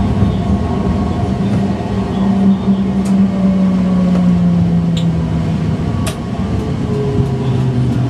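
Tram running on its track, heard from the driver's cab: a steady rumble with an electric motor whine that slowly falls in pitch, and a few sharp clicks.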